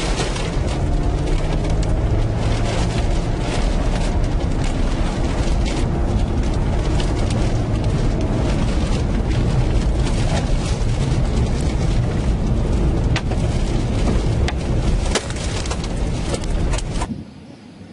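Loud, steady tornado wind buffeting the microphone, with frequent sharp cracks and knocks of flying debris. It stops suddenly near the end.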